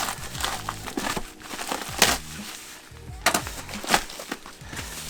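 Plastic packaging crinkling and crackling as it is handled and unwrapped, with sharp crackles about two seconds in and twice more near the end, over background music.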